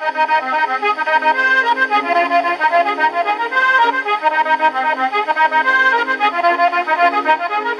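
A Scottish melodeon (diatonic button accordion) with piano accompaniment, from an early 78 rpm shellac record played on an HMV 102 wind-up gramophone. It is a quick, steady dance tune with a thin sound and no deep bass.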